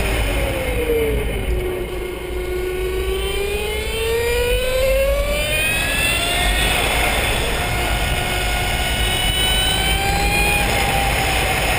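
Electric motorcycle's AC induction motor whining, several tones together that fall in pitch over the first two seconds, climb for several seconds as the motor speeds up, then hold nearly steady, over a low rumble.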